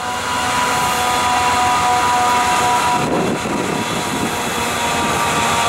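Approaching CSX freight diesel locomotive, its engine running with a steady high whine over a rumble.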